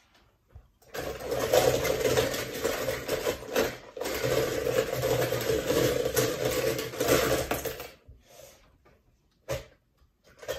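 Die-cast toy cars being stirred by hand in a bowl, a dense metallic clattering that starts about a second in, breaks briefly near the middle, and stops near the end, followed by a couple of single clicks as a car is picked out.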